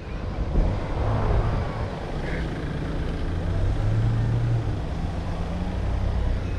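Mahindra Thar engine running off-road under varying throttle, its low note swelling a couple of times.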